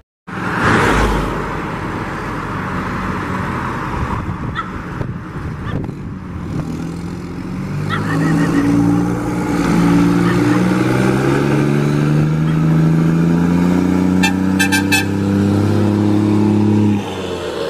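Volkswagen Constellation truck's diesel engine running with a deep exhaust rumble. From about eight seconds in, its pitch falls slowly over several seconds.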